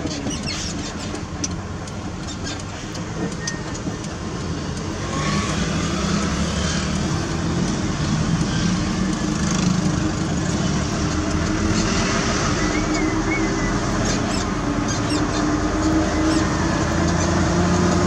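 Heavy vehicle's diesel engine running steadily, growing louder about five seconds in and slowly rising in pitch over the last few seconds.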